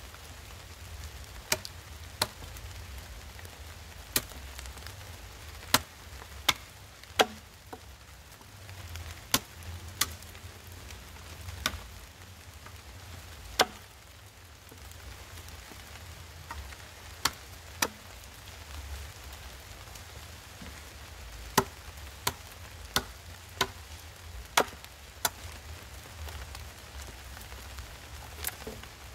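Machete blade chopping into a wooden pole, cutting a point on its end: about twenty sharp, separate chops at an uneven pace, often in pairs, with a pause of a few seconds in the middle.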